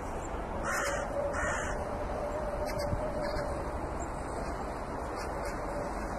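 Two short, harsh caws from a crow, about half a second apart, about a second in, over steady outdoor background noise, with a few faint ticks in the middle.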